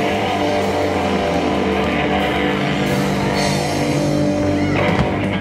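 Live rock band of electric guitar, electric bass and drums holding a loud sustained chord, which breaks off with a sharp hit about five seconds in.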